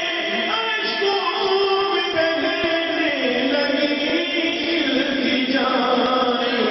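A man's voice in melodic chanted recitation, holding long notes that slide and step down in pitch.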